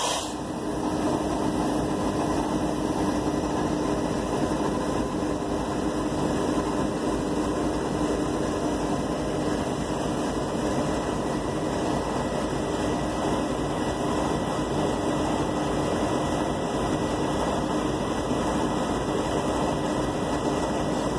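Diesel-electric freight locomotives idling on a stopped train: a steady, unchanging engine hum holding one low tone.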